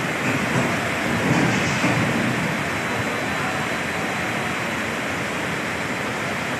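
Floodwater rushing fast with heavy rain falling: a steady, unbroken noise of moving water.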